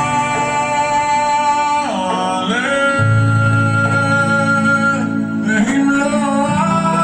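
Music: a song with a singer's long held notes sliding in pitch over guitar and a steady bass line.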